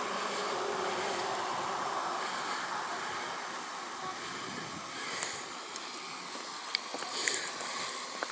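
Steady rushing noise of roadside traffic and wind on the microphone, with a few faint clicks in the second half.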